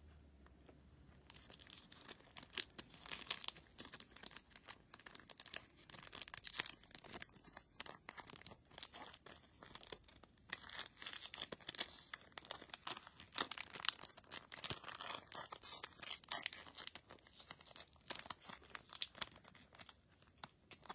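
Plastic wrapping crinkling and tearing in irregular bursts as a new speedcube is unwrapped by hand.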